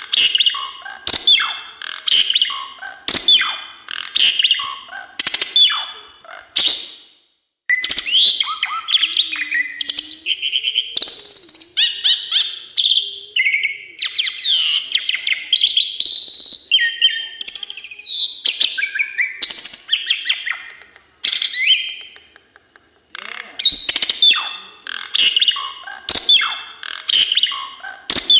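Asian pied starling (jalak suren) singing a long, varied song of loud whistles, pitch glides and rapid chattering notes, packed with learned phrases. The song breaks off briefly twice, about seven seconds in and again past twenty-two seconds.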